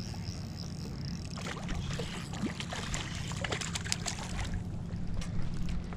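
A hooked cisco splashing at the water's surface as it is reeled in beside the boat: a run of irregular sharp splashes starting about a second and a half in, over a steady low hum.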